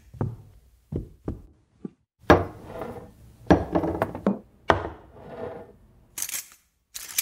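Sound effects of breakfast being served: a run of separate, unevenly spaced knocks and clatters of tableware being set down.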